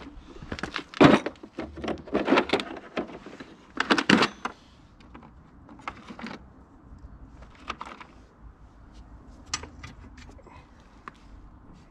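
Metal hand tools and parts clinking and rattling as they are handled, with a dense burst of clattering in the first four seconds and then a few scattered light clicks.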